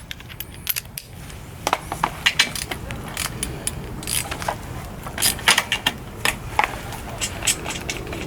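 Ratchet wrench clicking in short, irregular runs while a 10 mm bolt is undone, with light clinks of metal tools.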